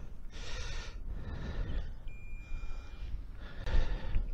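Wind rumbling on the microphone, with a man's heavy breathing heard as three short rushes of breath. A faint high steady tone sounds for about a second near the middle.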